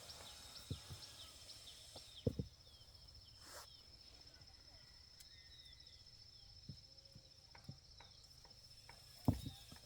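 A steady, high insect trill like a cricket's, with short falling chirps repeating in the first few seconds. A few low knocks break in, the loudest about two seconds in and again near the end.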